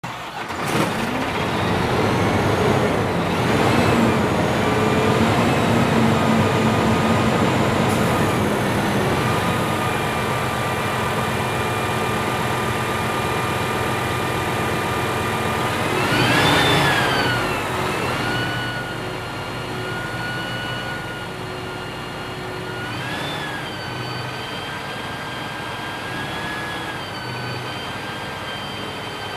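Fire engine's engine starting about half a second in and running fast with a steady whine, then revving up once in the middle and settling back to a lower, quieter steady run.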